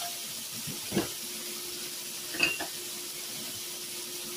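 Beef tips sizzling steadily in hot vegetable oil in a skillet as they brown. Two short knocks sound, about a second and about two and a half seconds in.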